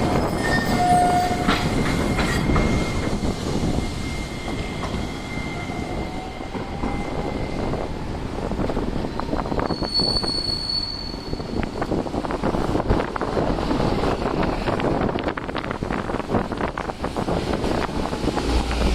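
Hiroden streetcar running on street track, with high, steady squeals from its wheels on the rails. Strong wind rumbles on the microphone throughout.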